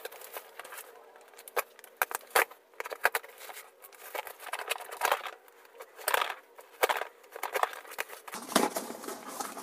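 Packing tape being cut and torn off a small cardboard parcel, with irregular scratchy crinkles, taps and clicks as the box is handled.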